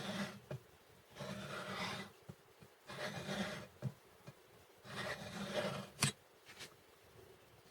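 A hand-turned valve-seat cutter scraping metal in a valve seat of a MeMZ-2471 cylinder head, in four cutting strokes one to two seconds apart, with a short click about six seconds in. The cutter is cutting the 60° and 120° auxiliary chamfers of the seat.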